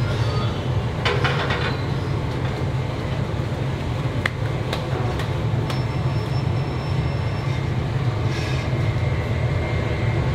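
A steady low mechanical hum, with a short clatter about a second in and two sharp clicks near the middle.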